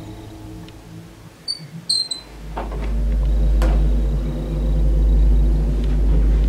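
A few short high squeaks, then a deep, loud rumble that swells in about two seconds in and holds steady, with two sharp knocks over it.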